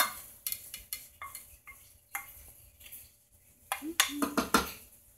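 Wooden spoon scraping and knocking against a metal frying pan as scrambled eggs are pushed off it into a stainless steel pot of spaghetti, with a run of louder knocks near the end.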